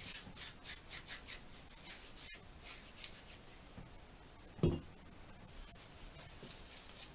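Hands rubbing and rolling fresh fireweed leaves, a dry rustling made of quick strokes in the first couple of seconds. This is the leaf-rolling stage of making fermented fireweed tea. About four and a half seconds in there is a single dull thump.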